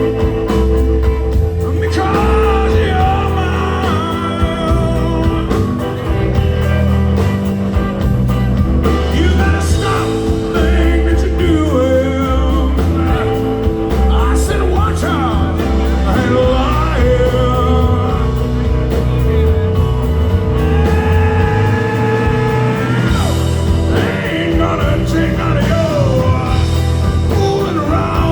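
Rock song with a singing voice over a steady beat.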